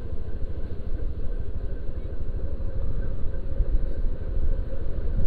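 Riding noise of a Honda Beat automatic scooter going down a steep mountain road: a steady low rumble of the engine, tyres and wind buffeting the microphone.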